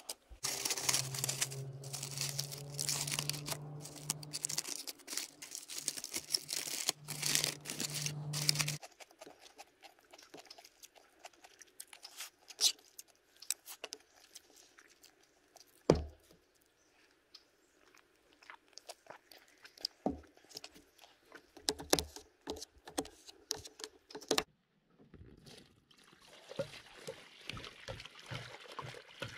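Aluminium foil crinkling as foil-wrapped food is handled on campfire embers, over a low steady hum. Then a spoon clicking and scraping on a plate, with crunching. Near the end, water pours with a glugging pulse from a plastic jug into a collapsible basin.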